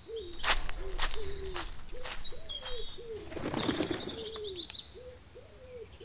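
Birds calling: a run of short, low, falling hoot-like notes repeating about two to three times a second, with higher chirps and whistles above them and several sharp brief sounds in the first couple of seconds.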